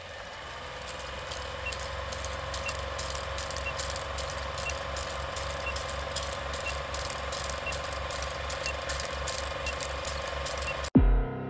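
Vintage film projector running, as for a countdown leader: a steady whir with fast, uneven clicking of film through the gate and a short high beep once a second. It cuts off suddenly near the end and music begins.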